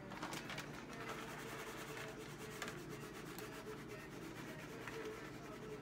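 A plastic zip-top bag of shredded cheddar rustling as the cheese is shaken out of it onto pasta: faint, steady rustling with small scattered ticks.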